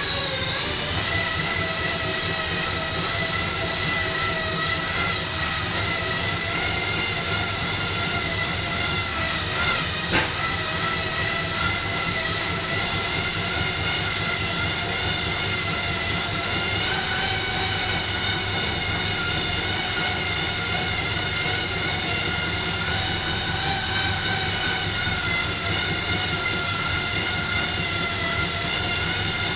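Road bike tyres spinning on Tacx rollers under steady pedalling: a loud, steady whining drone of several tones, whose pitch creeps up slightly as the speed builds, with one short knock about ten seconds in.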